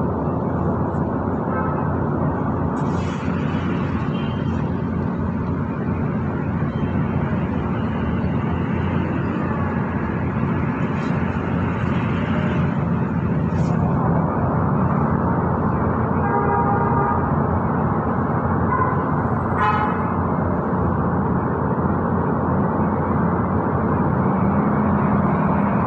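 Steady road traffic noise, heavy in the low end, with a few short vehicle horn toots in the second half.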